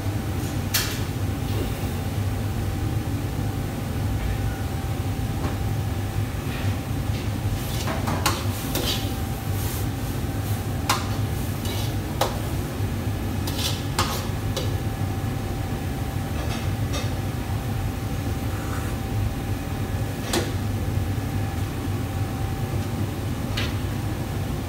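Steady low rumble of a commercial wok range, with a faint steady whine and about a dozen sharp metal clanks scattered through as a long metal utensil strikes and scrapes the woks.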